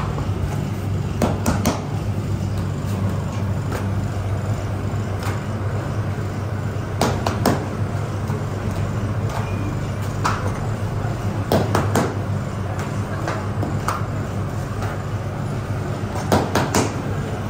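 Steady low electric hum of running bakery machinery, with sharp knocks or slaps every few seconds, often two close together.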